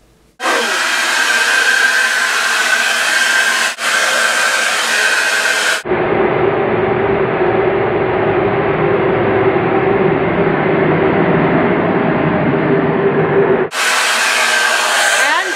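Hair dryer blowing steadily, switching on about half a second in with a high whine over the rush of air. For the middle stretch the sound changes to a lower-pitched hum, then returns to the higher whine near the end.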